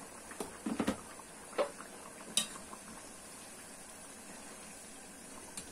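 A glass pot lid clattering as it is set on a pot: several short knocks and a sharp clink in the first two and a half seconds. A pot of salted vinegar water with diced eggplant bubbles faintly and steadily underneath.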